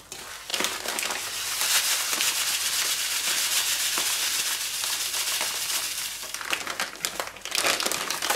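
Plastic bag of panko breadcrumbs crinkling as the crumbs are shaken out into a stainless steel bowl, with a gloved hand squishing through the chicken burger mix. The crinkling starts about half a second in and fades near the end.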